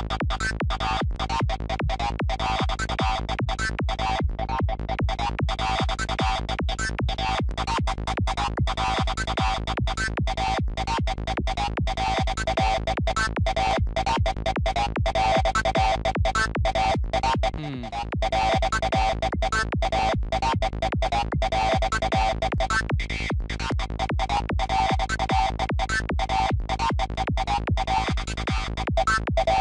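Dark psytrance synth lead patch built in Native Instruments Massive, looping a fast, chopped repeating pattern over a steady low end. About eighteen seconds in it drops out briefly with a downward pitch sweep, then carries on.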